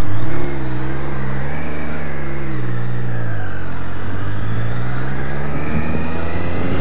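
Triumph Daytona 675R's three-cylinder engine pulling away, its pitch rising, dropping at a gear change about three seconds in, then rising again. Loud wind noise on the helmet microphone, strongest in the first half second.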